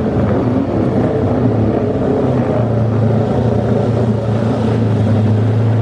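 Motorcycle engine running steadily at a nearly constant speed, a loud, even hum.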